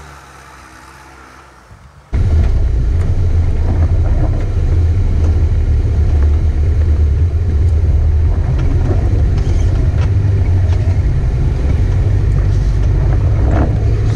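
A four-wheel-drive pickup's engine fading as the truck drives away. About two seconds in, the sound cuts to a loud, steady low rumble of the engine and running gear heard from inside the cab as it drives along a dirt track.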